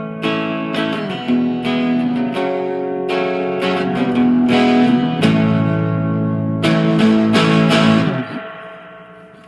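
Rickenbacker 360 electric guitar with flatwound strings, played in stereo through its Rick-O-Sound output into amplifiers: a run of strummed, ringing chords. A little after 8 seconds the playing stops and the last chord fades away.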